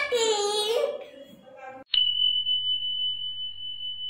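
A child's voice trails off, then about two seconds in a single high bell-like ding sound effect strikes and rings on steadily, slowly fading.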